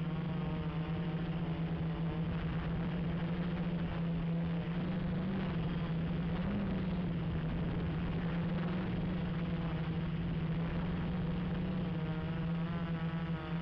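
Gaui 330X quadcopter's electric motors and propellers buzzing steadily in flight, the pitch wavering slightly as the throttle is adjusted.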